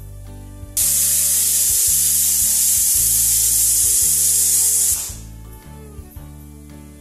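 Stovetop pressure cooker whistle: the weight lifts and steam blows out in a loud, high hiss. It starts suddenly about a second in, lasts about four seconds, then tails off, which means the cooker has reached pressure. Background music plays underneath.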